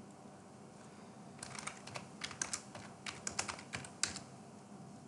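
Computer keyboard typing: a quick run of keystrokes starting about a second and a half in and lasting some two and a half seconds.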